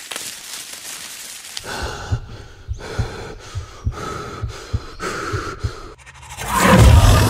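A boy panting hard, with low thuds about three times a second under the breaths. Near the end a loud rising swell takes over.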